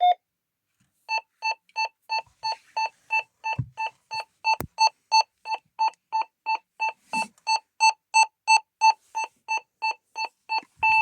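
ADE Optima Mk7 alarm panel sounding through its built-in speaker and an Elmdene extension speaker. A slower, lower beep stops at the start, and about a second in a higher, faster beeping begins, steady at about three beeps a second. A sharp click and a low knock come near the middle.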